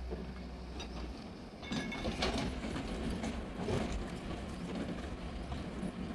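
Hyundai hydraulic excavator at work, its engine running with a low hum, with bursts of metallic clanking and rattling about two seconds in and again near four seconds.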